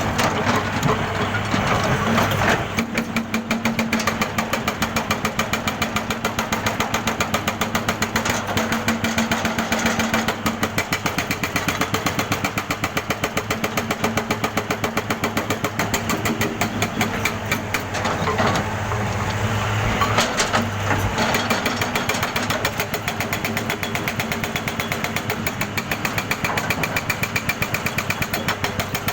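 Jackhammer pounding in rapid, even strikes over a steady engine drone.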